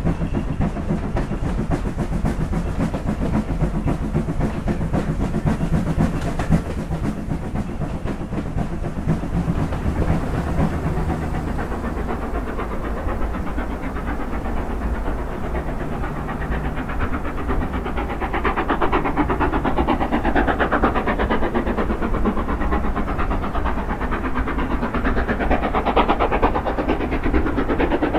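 Steam locomotive running with a train: steady chuffing and hiss of steam, with the wheels clattering over the rails.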